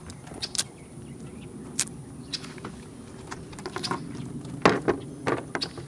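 Scattered clicks and knocks of a knife and pliers working a skinned catfish on a plastic cooler lid as its fins are cut off. The loudest knock comes about three-quarters of the way through.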